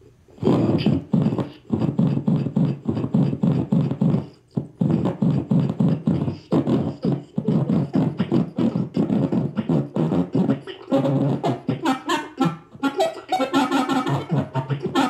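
Modified voice-to-saxophone toy fed by an interactive solar-system toy through a 386 op amp, giving rapid stuttering synthetic reed-like pulses that glitch out. There is a brief drop about four and a half seconds in, and near the end the notes turn longer and higher.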